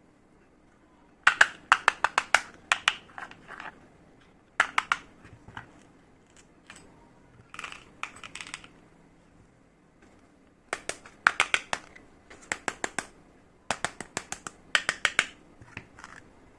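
Small plastic toy kitchen pieces being handled, clicking and tapping together in short bursts of rapid clicks, several times over.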